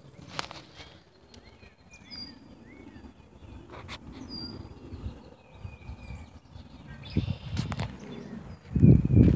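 Small birds chirping, a scatter of short calls that slide in pitch, over faint rustling of dry leaf litter. Near the end, loud crunching of footsteps through dry fallen leaves.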